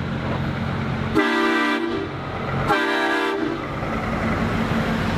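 Two short blasts of a Scania cement mixer truck's air horn, about a second and a half apart, over the steady running of the truck's diesel engine.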